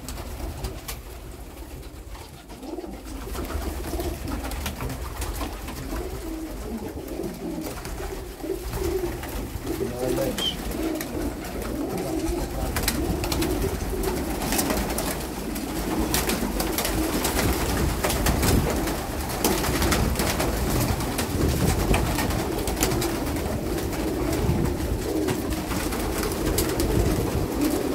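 Domestic pigeons cooing steadily inside a loft, with wings flapping and clapping as birds take off from their perches, more and more from about halfway through.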